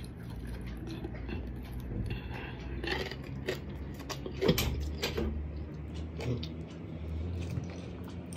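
Close-up eating sounds of a person chewing a mouthful of fried dried anchovies (dilis) and rice: a few short smacks and clicks of the mouth, bunched between about three and six and a half seconds in, over a low steady hum.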